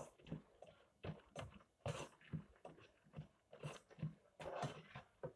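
A spatula scraping and knocking around a nonstick pan as roasted peanuts are stirred through thick, sticky sugar syrup: a run of short, uneven scrapes and taps, several a second, fairly faint.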